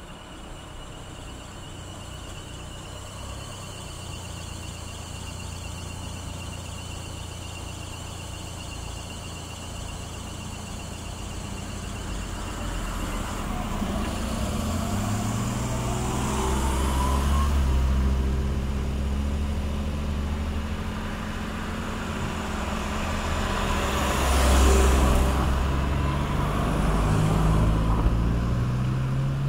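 Diesel engine of a route bus approaching, growing steadily louder, its engine note rising and falling as it drives up. A loud burst of hiss comes near the end as it slows to a stop, and the engine then runs on at idle.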